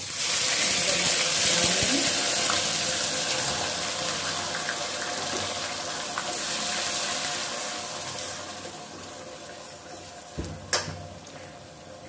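Wet ground onion paste poured into hot oil in a steel kadhai: a loud sizzle that starts at once and fades gradually over the next several seconds. A single sharp clink near the end.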